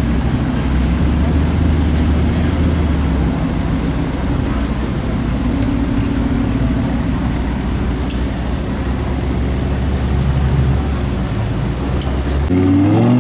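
Car engines idling in street traffic: a steady low rumble with a few faint clicks. Near the end, one engine revs up sharply, its pitch rising.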